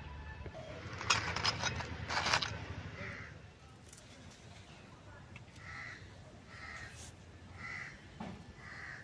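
Crows cawing: a louder cluster of harsh caws between about one and two and a half seconds in, then fainter single caws at roughly one-second intervals.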